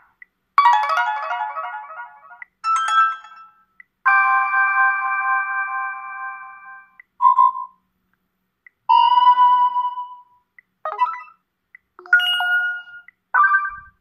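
Sony Xperia 10 III smartphone loudspeaker playing previews of its built-in alert tones one after another as each is tapped in the list: about eight short chimes and melodies with brief silences between them, a held chord in the middle cut off suddenly when the next tone is selected.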